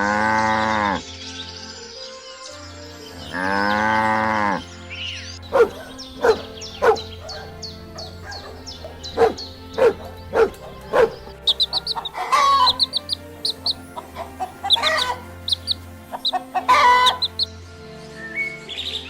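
Chickens clucking in a run of short, sharp calls, later mixed with quick high peeping notes, after two long drawn-out animal calls near the start. A steady music bed hums underneath.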